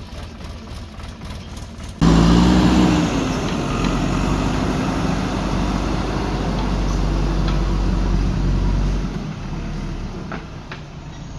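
Heavy-machinery diesel engine running: quieter and steady at first, then suddenly much louder about two seconds in, and easing back down near the end. A couple of short knocks come near the end.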